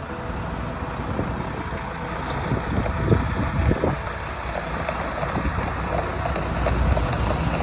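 A vehicle engine running steadily, with gusting wind noise on the microphone.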